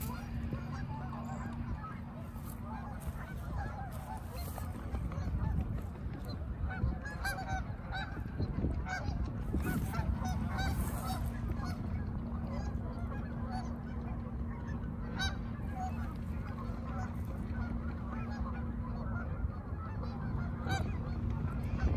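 A large flock of Canada geese honking on the water, many calls overlapping without pause, over a steady low rumble.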